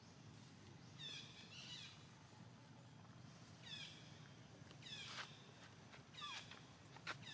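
Baby long-tailed macaques giving short, high-pitched, falling squeaks, about five calls a second or so apart, faint over a low steady hum, with a sharp click near the end.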